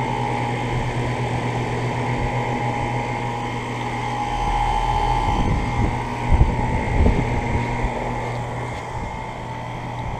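Outdoor Carrier central air-conditioner condensing units running: a steady compressor hum under the whir of the condenser fans. A couple of short low bumps come about six and seven seconds in.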